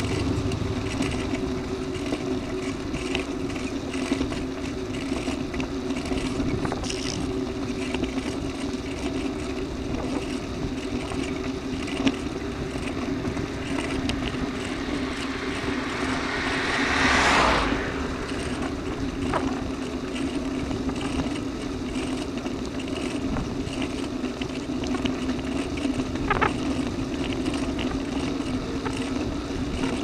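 Steady ride noise from a bicycle-mounted camera: a constant hum with the rush of wind and tyres on asphalt. About seventeen seconds in, an oncoming car passes, swelling and fading within a couple of seconds, and a couple of sharp knocks come from bumps in the road.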